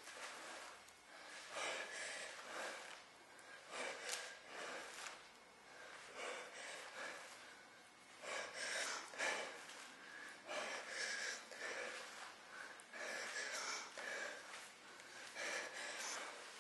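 A woman's hard breathing during crunches: short, forceful breaths about once a second, picked up close by a microphone clipped to her chest.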